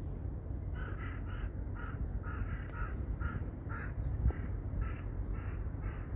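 A crow cawing over and over, short calls about two a second, starting about a second in, over a steady low rumble of strong wind on the microphone.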